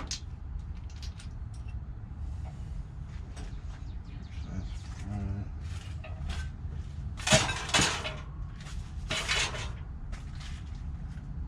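Light metallic clicks and clinks of tools and engine valvetrain parts being handled during a teardown, with three louder clinks a little past the middle.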